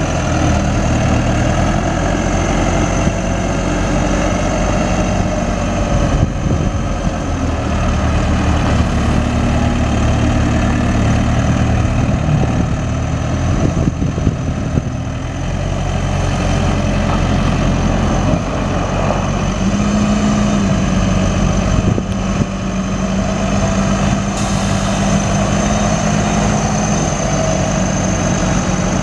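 Case 580 Super M Series 2 backhoe's diesel engine running steadily, its pitch shifting slightly a few times.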